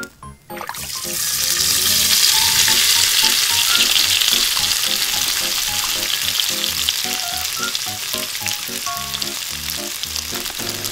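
Tempura-battered lobster deep-frying in hot oil in a miniature steel pot: a dense sizzle with fine crackling that starts about half a second in, swells over the next second or two, then slowly eases.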